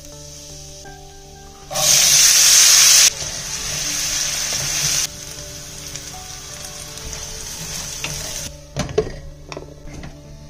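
Food sizzling in hot oil in a pan. A sudden loud sizzle starts about two seconds in, eases after a second or so, then settles to a quieter steady sizzle. A few sharp knocks come near the end, over soft background music.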